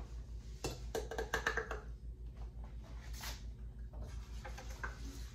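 Light clicks and knocks of items being handled on a kitchen counter, with a short squeak-like sound about a second in, over a steady low hum.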